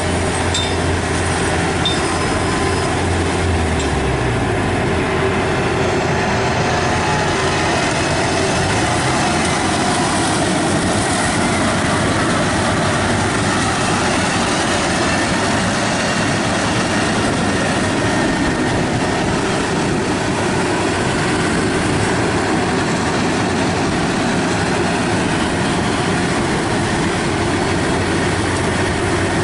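Yanmar AW82V rice combine harvester running close by: a steady din of engine and threshing clatter. A low engine hum drops in pitch about three to four seconds in, then the noise stays even.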